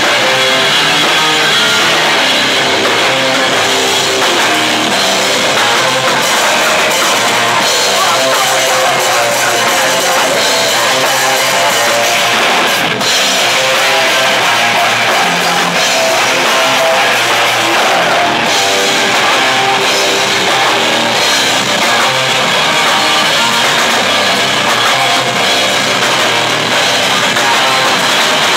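Live rock band playing loudly: electric guitars over a drum kit, a dense, unbroken wall of sound.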